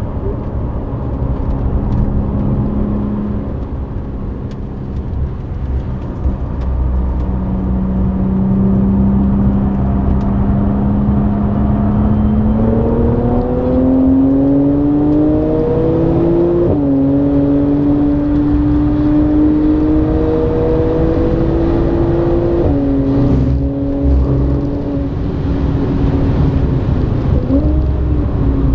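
Tuned Audi B8 S4's supercharged 3.0-litre V6 with a non-resonated Milltek exhaust, heard from inside the cabin on track: it runs steadily at first, then pulls hard with the engine pitch climbing, drops suddenly at an upshift about halfway through, climbs again and drops at a second upshift some six seconds later. Tyre and road noise runs underneath.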